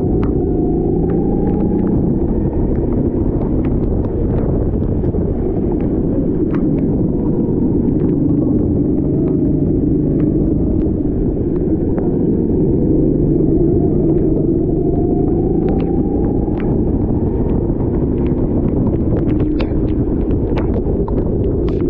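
Rental racing kart engine running hard over a heavy low rumble, its pitch climbing as it accelerates near the start and again about two-thirds of the way through, with scattered sharp ticks.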